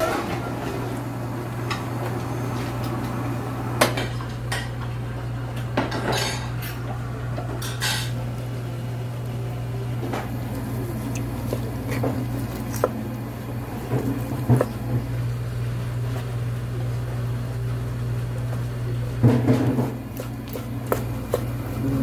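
Kitchen clatter of a metal ladle, pots and bowls: scattered clinks and knocks over a steady low hum.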